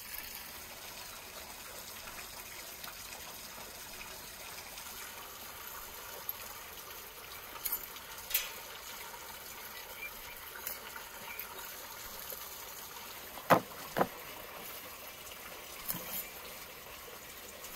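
A steady trickle of running water, with a few light clicks and, past the middle, two sharp knocks about half a second apart: a knife chopping through a dried sausage onto a wooden cutting board.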